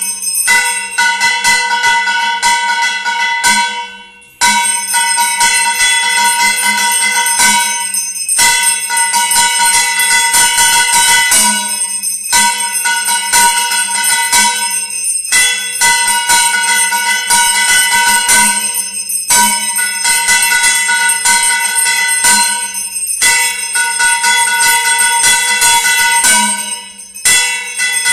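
Temple bell rung rapidly and continuously for an aarti, in stretches of about four seconds broken by short pauses.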